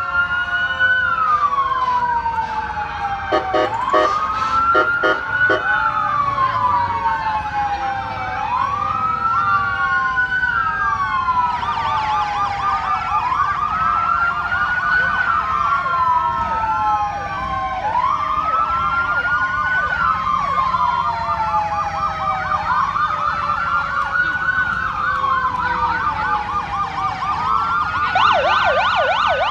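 Police car sirens wailing, rising and falling about every three and a half seconds, with a faster yelping siren joining about twelve seconds in and a rapid warble near the end. A string of short horn blasts sounds about four seconds in.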